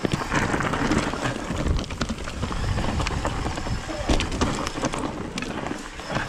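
Mountain bike riding down a steep, dry dirt trail: tyres crunching over loose soil and stones, with a jumble of small knocks and rattles from the bike over the bumps.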